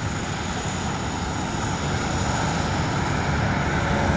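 Light single-engine propeller airplane climbing out at takeoff power, its engine and propeller growing steadily louder as it draws nearer.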